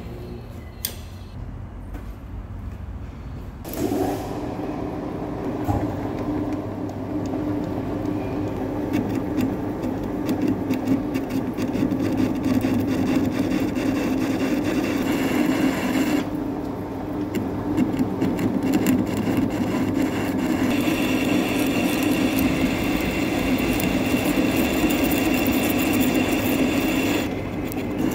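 Centre lathe turning a steel hydraulic cylinder rod, a carbide insert tool cutting away the weld at the end of the telescopic inner tube. The spindle runs steadily, and the cut sets in about four seconds in with a dense, steady cutting noise. A high steady ringing joins it in the last several seconds.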